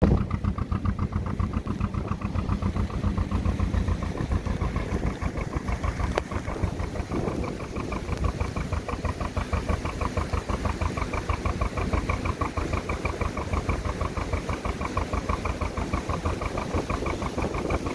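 Narrowboat's diesel engine running under way with a steady, even beat.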